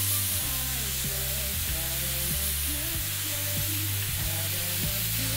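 Thin slices of marinated beef bulgogi sizzling on a hot domed Seoul-style bulgogi grill pan, a steady frying hiss. Background music with steady low notes plays under it.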